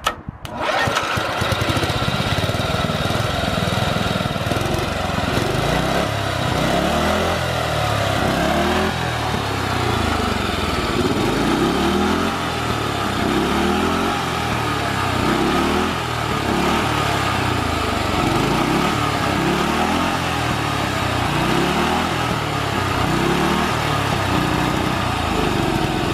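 Ride-on lawnmower engine running loudly, coming in suddenly about half a second in, its pitch rising and falling over and over as the throttle is opened and let off. The engine dips, dying a little when the gas is let off, a sign of the carburettor still running poorly.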